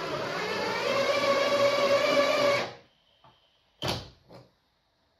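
Makita cordless drill's brushless motor, run by sensorless control, driving a screw into a wooden block: a steady whine with several tones that rises in pitch and gets louder about a second in, then stops abruptly after about two and a half seconds. A sharp knock follows a little over a second later, with a smaller one just after.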